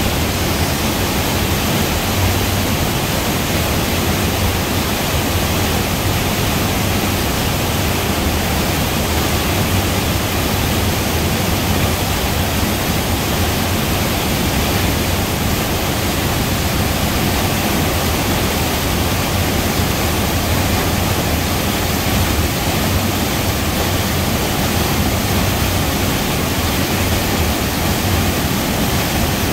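Mountain-river waterfall crashing into a foaming plunge pool in a narrow rock gorge: a loud, steady rush of falling water that does not change.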